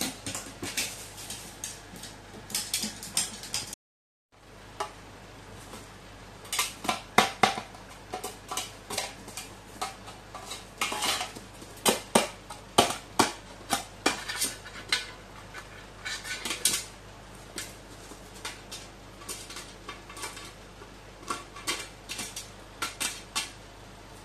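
Crow pecking and prying at a tin pencil case with its beak, the metal clicking and clattering in irregular sharp taps, some in quick runs, as it works the case open to get at the treats inside.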